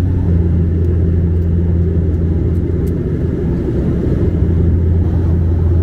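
Cabin noise of a Bombardier DHC-8-Q400 turboprop in flight: a steady low propeller drone over engine and airflow rumble.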